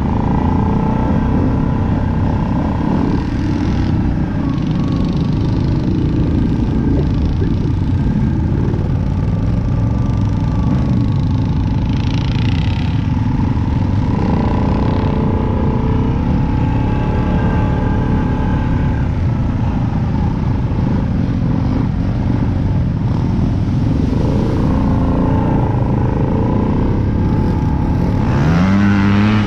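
Off-road bike engine running steadily while riding the trail, with a brief rev near the end.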